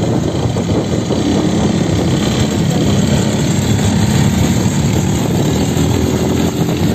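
Aeon quad bike (ATV) engine running steadily at low revs as the quad pulls away across soft sand.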